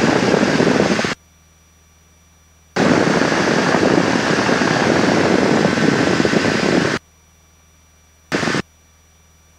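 Bursts of loud hiss in a Cessna 172's headset audio, each switching on and off abruptly: about a second, then about four seconds, then a short blip near the end. This is radio or intercom squelch opening with no words. Between the bursts there is only a faint steady low hum.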